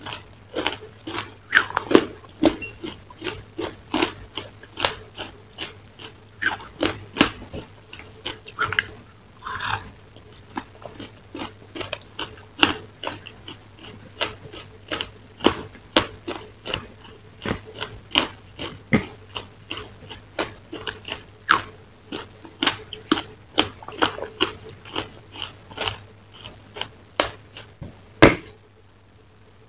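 Close-up chewing of crunchy food: a steady run of crisp crunches and crackles, about two or three a second, with one sharper, louder crack near the end.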